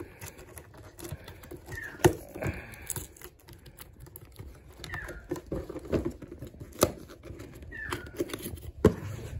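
A large cardboard box being pried open by hand: fingers working at the taped lid flap, with cardboard scraping and tearing and a few sharp knocks. Three short high squeaks that fall in pitch come about three seconds apart.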